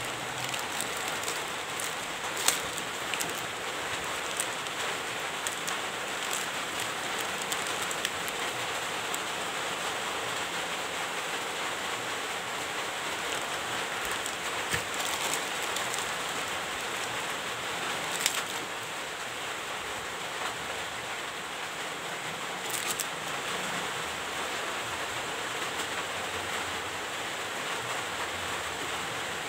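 Clear plastic spare-parts bags and a small cardboard parts box being handled, with a few sharp crackles, over a steady hiss.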